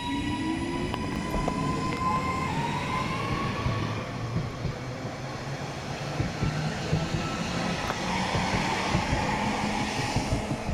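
Northern Class 331 electric multiple unit pulling away from a station stop. Its traction motors whine in several tones that glide upward in pitch as it gathers speed, over the low rumble of wheels on the rails.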